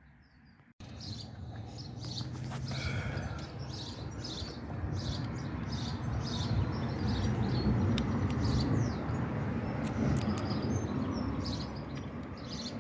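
Birds chirping repeatedly over a steady low background rumble.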